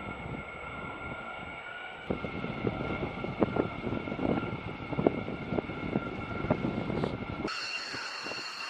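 Jet aircraft engine running with a steady high-pitched turbine whine over a rumble, broken by irregular knocks and crackles from about two seconds in. Near the end it cuts abruptly to a different, higher engine whine.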